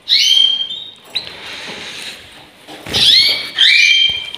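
Canaries calling with short squeaky calls that glide upward and hold a high note: one at the start, then two close together about three seconds in.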